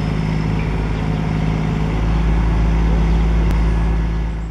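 A heavy engine running steadily with a deep, even hum, fading out at the very end.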